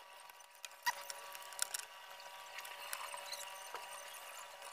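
Gloved hands handling wires and wrapping them with electrical tape: faint rustling and crinkling with a few sharp clicks, one about a second in and another about half a second later, over a faint steady hum.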